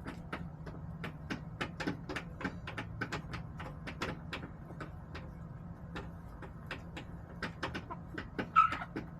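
Hens pecking, an irregular run of sharp taps several a second, over a low steady hum. A short hen call comes near the end.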